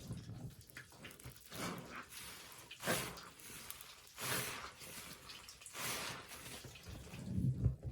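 Soapy sponge soaked with Pine-Sol being squeezed repeatedly, a wet squishing swell about every one and a half seconds, with a low rumble near the end.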